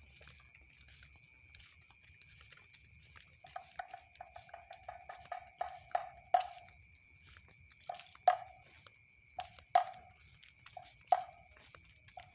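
A quick run of short knocks, each with a brief ringing tone, slowing after a few seconds into single knocks about one and a half seconds apart. A faint, steady high-pitched whine lies underneath.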